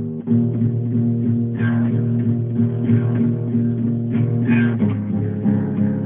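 Background guitar music.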